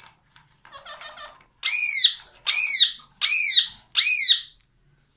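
Pet parrot calling: a short buzzy chatter, then four loud, harsh squawks in quick succession, each rising and then falling in pitch.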